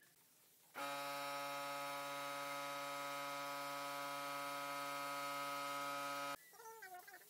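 A steady electric buzzing hum with many held tones starts about a second in and cuts off abruptly about five and a half seconds later. Near the end a cat meows.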